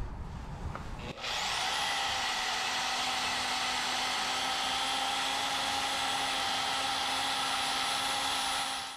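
Milwaukee portable band saw cutting through thick steel plate. It starts about a second in with the motor spinning up to a high whine, then runs steadily as the blade saws through the steel.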